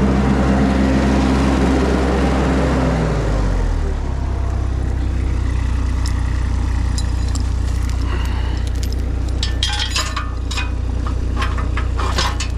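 Mini skid steer's engine running hard, then settling to a lower steady speed about three and a half seconds in. From about seven seconds on come scattered sharp cracks and clinks.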